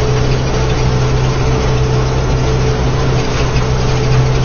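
Tractor engine running steadily under load while pulling a disc harrow through the soil.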